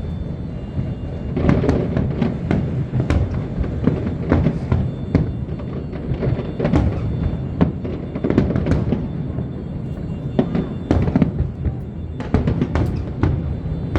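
Aerial fireworks going off in quick, irregular succession, many sharp bangs with crackle between, over music.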